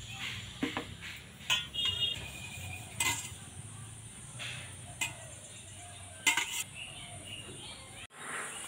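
A hand smearing mustard oil around the inside of stainless steel plates, with a faint rubbing and several sharp clinks and knocks as the steel plates are handled and set down.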